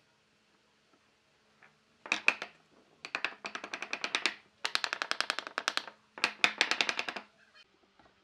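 Claw hammer tapping a pine door board in quick runs of light, rapid strikes, seating it into its joint. The tapping starts about two seconds in and comes in four bursts, over a faint steady hum.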